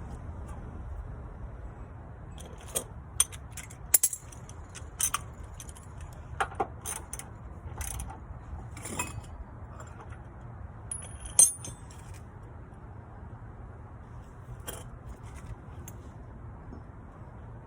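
Scattered metallic clinks and clicks of hand tools and hardware being handled, the loudest about eleven seconds in with a short high ring, over a steady low rumble.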